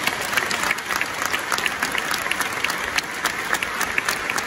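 A large crowd of spectators applauding, many hands clapping steadily.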